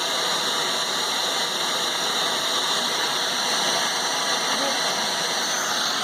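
Fish tank running next to the microphone: a steady mechanical noise with water hiss that does not change.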